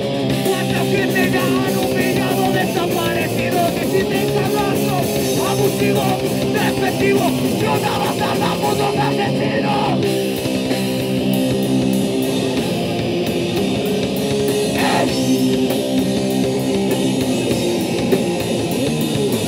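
A punk rock band playing live: electric bass, guitar and drums, loud and continuous.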